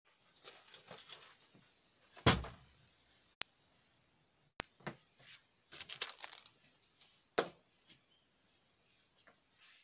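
Crickets chirping steadily in the background. About two seconds in comes a loud thump, and later there are lighter knocks and rustles of a parcel and carry bag being handled and set down on a bed.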